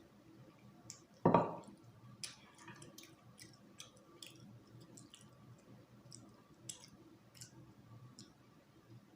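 Close-up eating sounds: wet lip smacks and mouth clicks, scattered irregularly, from eating rice and stew by hand and picking at a meat bone, with one louder, brief sound about a second and a half in.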